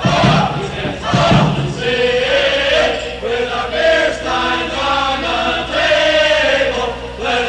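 A group of voices singing a fraternity song together, choir-style.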